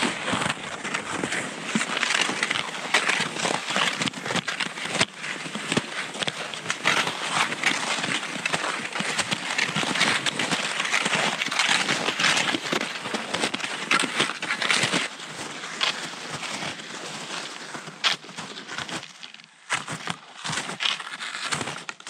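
Steady crunching of strides over crusted, frozen snow, as a skier or walker moves along; the crunches thin out into a few separate, louder ones near the end.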